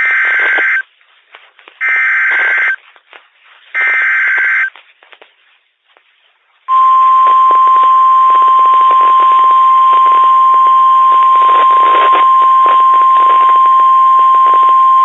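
Emergency Alert System SAME header on NOAA Weather Radio: three identical bursts of two-tone digital data, each about a second long, followed about seven seconds in by the steady 1050 Hz weather radio warning alarm tone with static crackling under it. The sequence announces that a new warning is about to be read.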